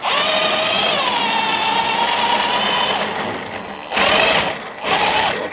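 A power driver's motor whirring steadily as it spins a nut down the threaded rod of a headset bearing-cup press tool. Its pitch dips slightly about a second in, it runs for about three seconds, and then comes two short bursts near the end.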